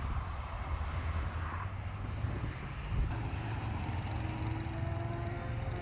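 Steady low rumble of a car, with faint tones slowly rising in pitch in the second half.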